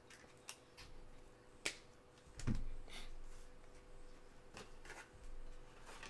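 Faint clicks and rustles of trading cards being handled in black nitrile-gloved hands, with a soft low thump about two and a half seconds in.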